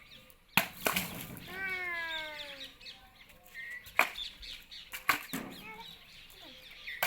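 Balloons bursting: several sharp bangs, the loudest about half a second in and again at four seconds, with a falling squeal between them. Birds chirp in the background.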